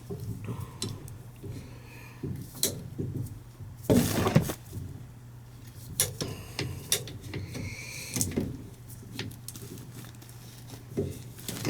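Scattered knocks and clicks of a plastic PVC condensate drain trap and its fittings being handled and worked loose, over a steady low hum. The loudest knock comes about four seconds in.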